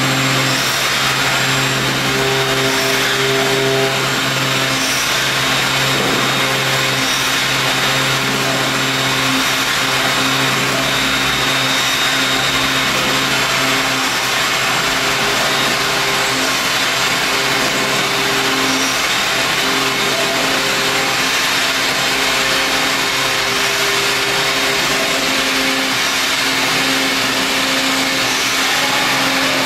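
CNC router cutting a black sheet on its vacuum table, the spindle running steadily with dust extraction drawing air. It gives an even hiss over a steady low hum and a few steady higher tones, without a break.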